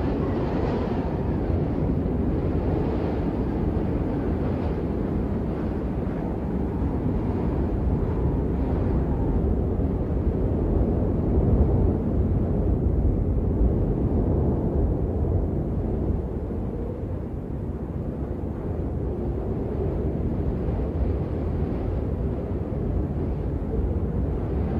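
Strong wind buffeting the microphone: a steady low rumble that swells in a gust about halfway through, then eases for a moment.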